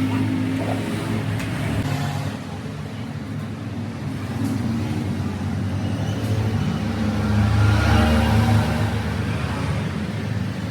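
An engine running steadily with a low hum, its pitch shifting slightly and growing louder about eight seconds in.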